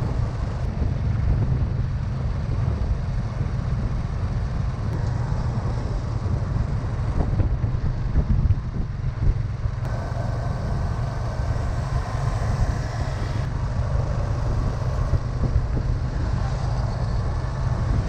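Motor vehicle on the move: a steady low rumble with a hiss above it.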